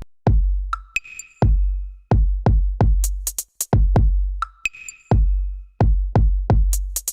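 Electronic background music with a drum-machine beat: deep, long-ringing bass kicks and sharp snare and hi-hat hits, with short synth stabs now and then.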